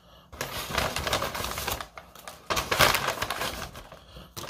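Brown paper takeout bag rustling and crinkling in irregular bursts as food is pulled out of it by hand, loudest near the middle.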